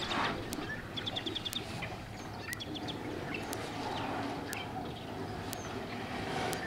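Small birds chirping here and there, with a quick run of high chirps about a second in. A short rush of noise comes right at the start.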